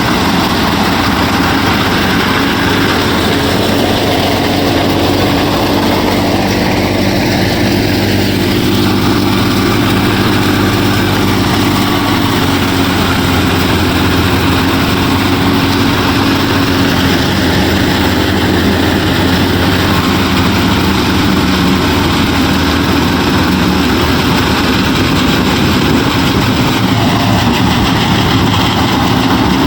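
Motor of a DIY mini combine harvester running steadily: a continuous low engine-like drone that holds the same pace throughout.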